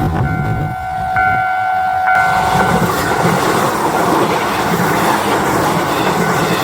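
A train running through a Japanese level crossing, wheels clattering over the rails, while the crossing's warning bell rings a steady two-tone chime. The bell is drowned out by the passing train from about two seconds in.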